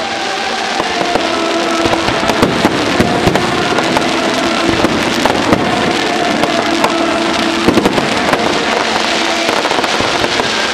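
Aerial fireworks display: a dense, continuous run of sharp bangs and crackles from bursting shells.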